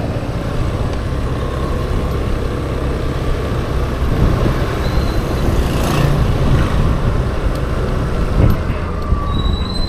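Suzuki Burgman Street 125EX scooter's single-cylinder four-stroke engine running as it picks up speed at low road speed, under a steady rumble of riding noise.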